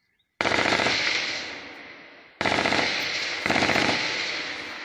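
Bursts of automatic gunfire close to the microphone: a fast string of shots breaks out suddenly about half a second in and fades, then a second burst starts about two seconds later and carries on almost to the end.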